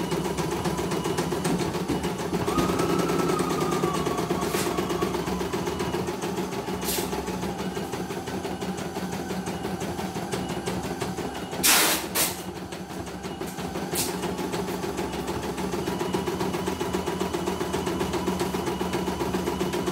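CNY E900 computerized embroidery machine stitching, its needle running in a steady fast rhythm over the motor hum. Two sharp knocks in quick succession a little past halfway, with a few fainter clicks elsewhere.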